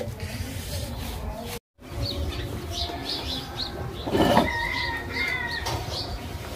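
Small birds chirping and calling, with a short rush of noise a little past the middle.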